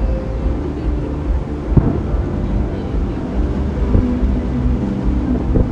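Distant fireworks shells booming about three times, the clearest one about two seconds in, over a steady low rumble with humming tones.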